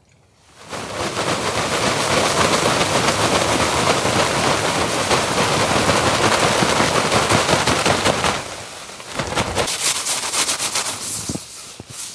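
A stiff tarp, heavy with absorbed water and ice, being shaken out: a loud, dense crackling rattle for about seven seconds. It eases, then comes back in shorter flaps near the end.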